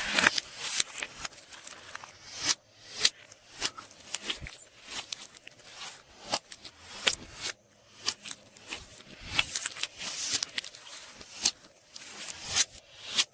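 Glossy slime being handled and mixed, giving irregular sticky clicks, pops and wet squishes several times a second.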